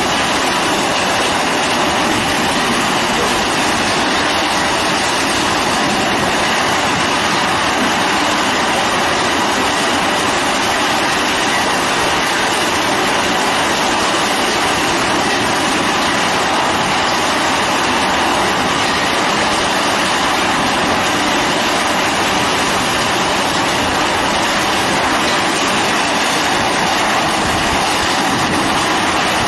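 ZZS SC1680 horizontal hammer mill crusher running steadily, shredding scrap steel paint buckets fed in by conveyor: a loud, continuous, dense noise with no breaks.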